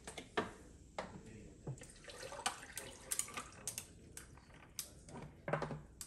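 Plastic water bottle handled with a run of small clicks and crackles, then water poured from it into a plastic tumbler near the end.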